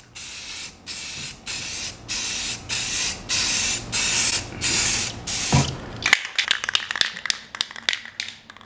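Aerosol spray-paint can spraying in short bursts of hiss, about two a second, as the nozzle is pressed and released repeatedly. About six seconds in the spraying stops and a quick run of sharp clicks and rattles follows.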